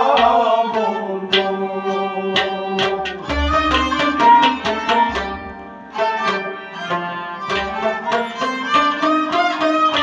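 Instrumental passage: harmonium and bowed sarangi playing the melody together, with quick hand-drum strokes.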